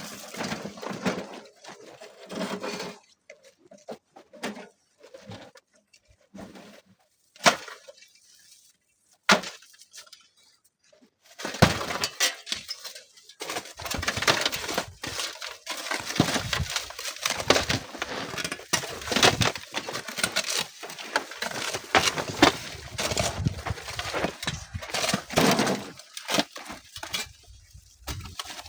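Sand and small stones breaking away from a dry sand cliff and pouring down it: a few scattered knocks and clatters, then from about eleven seconds in a dense, steady crackle of falling grit and pebbles.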